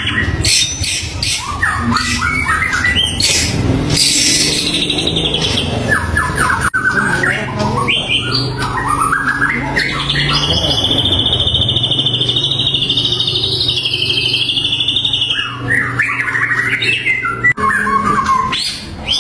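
White-rumped shama (murai batu) singing a varied song of short whistled and chattering phrases, with a long wavering trill held for about five seconds in the middle.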